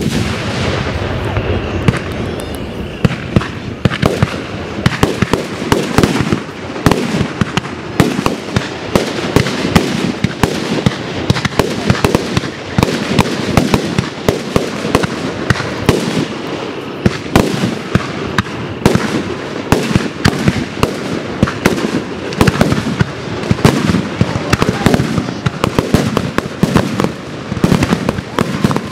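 Aerial fireworks shells bursting one after another in a dense, continuous barrage of booms and crackles, starting with a very loud bang.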